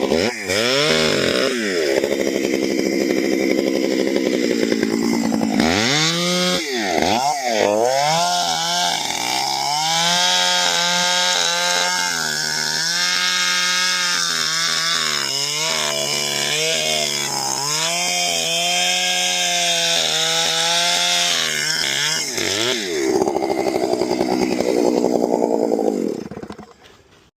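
Chainsaw running under load, cutting wood: its engine pitch sags and recovers several times as the bar bites, holds steady through a long cut, then drops away near the end.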